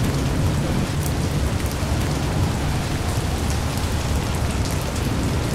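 Steady rain falling on forest foliage, with a low rumble underneath.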